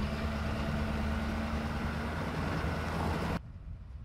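Truck driving slowly along a dirt road, engine and tyre rumble heard from inside the cab with a steady low hum. About three and a half seconds in, the sound drops abruptly and turns quieter and duller.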